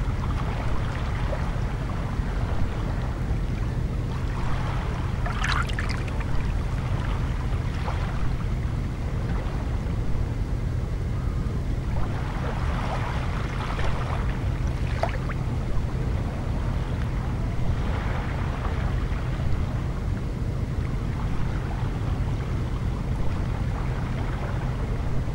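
Calm sea lapping gently at a pebble shore, with a few soft splashes, over a steady low rumble.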